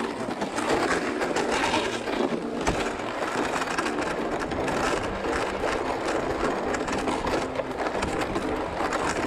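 Sled towed on straps across crusty snow and ice: a steady grinding, crunching scrape as it slides, with boots crunching on the ice.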